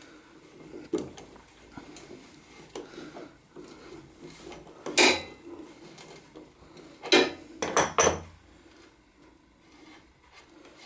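Hand tools clinking on metal while the motorcycle's rear axle nut is spun off and the wrench and socket are handled: a few sharp metallic clinks, the loudest about halfway through and a quick run of three a couple of seconds later.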